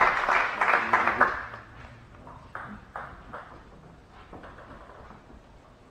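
Spectators clapping after a table tennis point, fading out about a second and a half in. A few faint, light taps follow.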